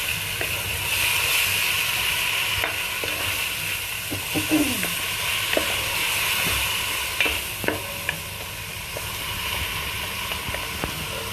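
Ground spice paste sizzling as it fries in oil in a pot, with a wooden spatula stirring and scraping against the pot, knocking now and then. The sizzle is steady, easing a little near the end.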